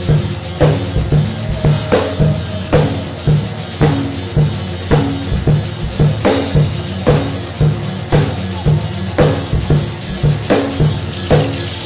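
Live instrumental rock band: drum kit keeping a steady kick-and-snare beat, about two beats a second, over held electric guitar and keyboard notes.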